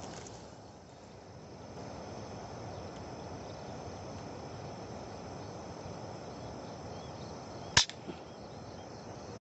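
A single sharp shot from a bird-hunting gun, about three-quarters of the way through, over a steady outdoor background hiss.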